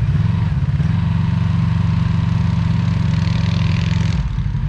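An engine running steadily at an even speed, a loud low hum, with a brief hiss rising over it about three seconds in.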